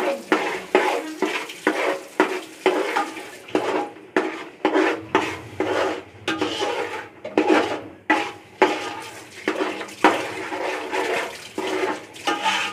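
A metal spatula stirring and scraping through thick masala paste in a metal pot, knocking and scraping against the pot's sides about twice a second, each stroke ringing briefly. The masala is being fried (bhuna) in oil.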